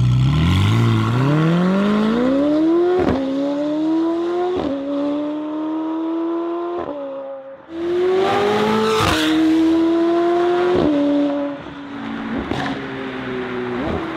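McLaren 720S twin-turbo V8 with a Fi valvetronic catback and catless downpipes accelerating hard, pulling up through the gears with a short crack at each of three upshifts. The sound breaks off about seven and a half seconds in, and a second hard pull through three more upshifts follows.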